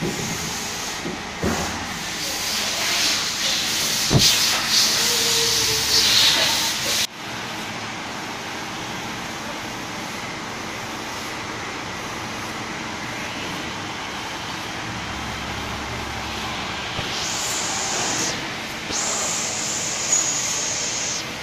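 Workshop machinery noise: a steady low hum with loud hissing. The first hiss runs for about seven seconds and cuts off suddenly, and two shorter hisses come near the end.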